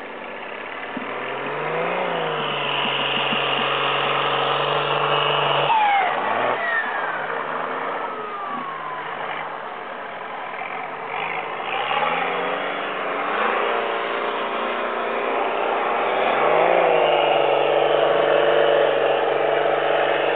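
Off-road 4x4 engines revving hard in snow: the pitch climbs and holds high, drops off sharply about six seconds in, then rises again in steps and holds high through the last few seconds.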